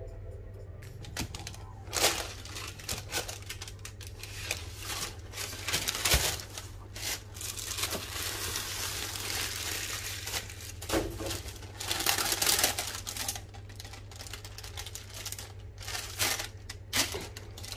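Tissue paper rustling and crinkling as rubber rain boots are handled and pulled out of their box, with irregular knocks and taps, over a steady low hum.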